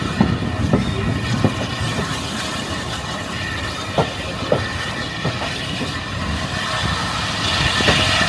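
Railway carriages rolling along the track. A steady running noise is broken by a few scattered sharp clacks of wheels over rail joints, and it grows louder near the end.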